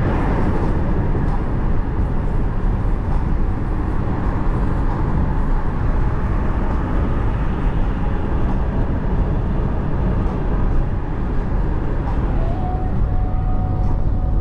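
Steady road, tyre and engine noise inside a small car's cabin cruising at about 80 km/h, mostly a low rumble, with a faint steady whine coming in near the end.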